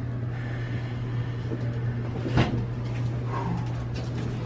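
Side-lying chiropractic adjustment: a single sharp crack about halfway through as the spinal joint releases under the thrust, over a steady low hum.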